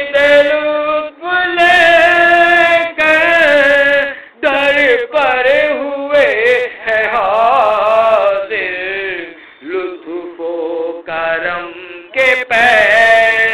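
A man sings an Urdu devotional salam in long melismatic phrases, his voice sliding and wavering through drawn-out notes, with brief breaks between phrases.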